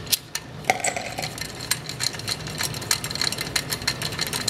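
Ratchet wrench clicking rapidly and unevenly as a half-inch socket backs out the cylinder head bolts on a small engine.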